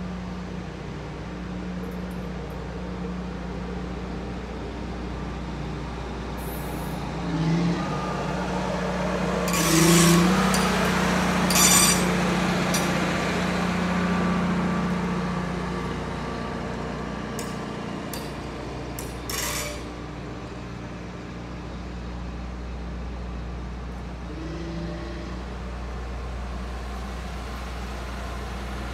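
Railroad maintenance-of-way equipment running past, with a steady engine hum. Loud sudden bursts come about ten and twelve seconds in, and smaller ones near eight and twenty seconds.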